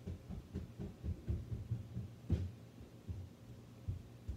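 Dull, irregular low thumps, several a second and loudest about two seconds in, over a steady low hum.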